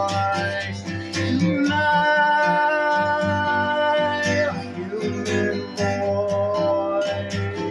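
Instrumental break of a song: strummed guitar over a steady beat, with held melody notes gliding between pitches.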